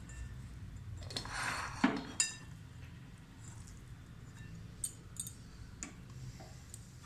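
A few light clinks of a kitchen utensil against a dish, with a short rustling swish about a second in and a couple of faint ticks later.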